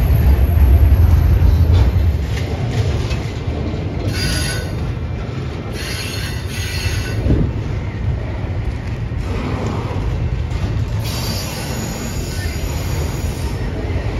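A train rolling past on the tracks: a heavy low rumble that eases after about two seconds, then wheels squealing in several high bursts, the longest near the end.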